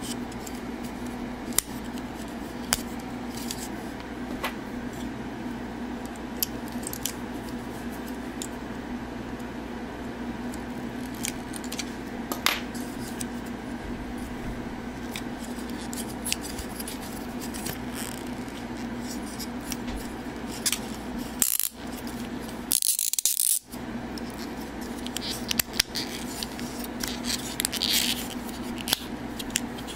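Hard plastic parts of a transforming robot-hornet figure clicking and rattling as they are handled and moved by hand, in scattered sharp clicks with a few louder snaps, over a steady low hum.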